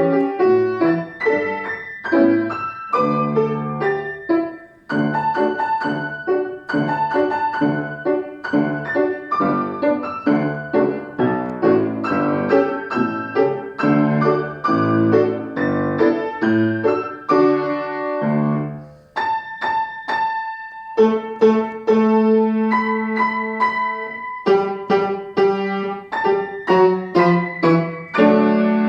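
A young pupil playing a lively solo instrumental piece: quick runs of bright, bell-like notes, a short break about nineteen seconds in, then slower held notes.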